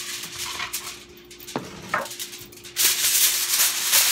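Aluminium foil being handled and crinkled as it is spread over a metal baking pan, a dense rustling that grows louder and steadier from about three seconds in.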